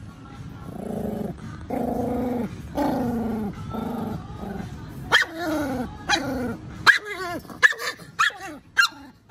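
A Pomeranian growling in drawn-out, falling growls, then breaking into a run of about six sharp, loud barks in the second half. The dog is strongly worked up by a stranger, which the owner reads as excitement or fear.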